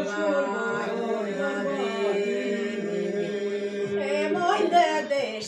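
Aromanian folk song sung unaccompanied by several voices: a melody line over a steady held drone note. The phrase breaks up about four seconds in and ends near the end.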